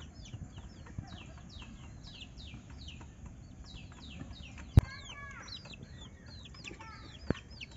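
Birds chirping: short, high, falling chirps several times a second, keeping up throughout. A sharp click comes about five seconds in, followed by a brief lower bird call, and a smaller click comes near the end.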